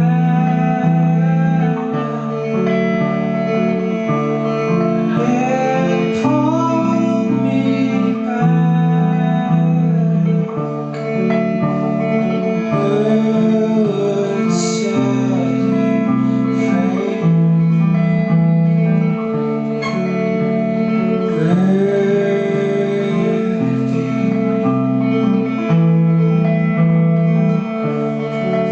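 A live band playing a song: guitars over steady low bass notes, with a singer's voice.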